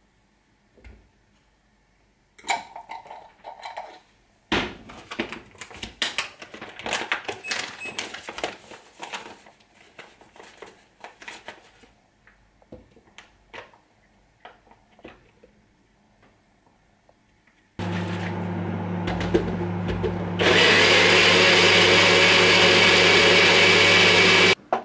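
Clicks and rustles of ingredients being spooned and poured into a plastic blender cup, then a personal bullet-style blender starting up and blending a protein shake: a steady motor hum that grows much louder and fuller a couple of seconds in, then stops abruptly.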